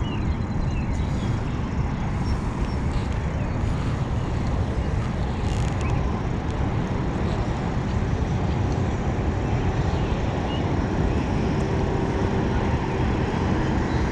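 Steady low outdoor rumble, even throughout, with a few faint high chirps.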